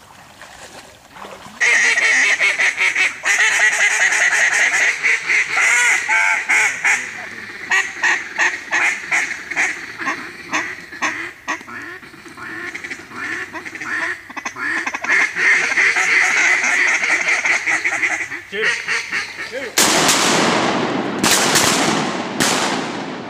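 Hunters blowing cut-down duck calls at mallards: long, loud runs of rapid quacks and chatter. Near the end comes a quick series of shotgun shots, each ringing briefly through the timber.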